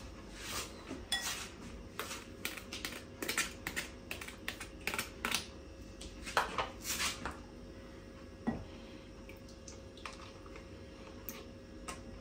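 Light kitchen clatter of a spoon, containers and a bowl: a run of short clinks and knocks, frequent in the first seven seconds and sparser after, as yogurt is opened and scooped from a tub into a bowl.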